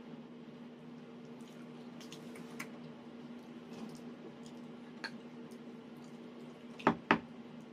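Eating at a table: small clicks of spoons and forks against plates and soft chewing, with two sharp knocks close together near the end, over a steady low hum.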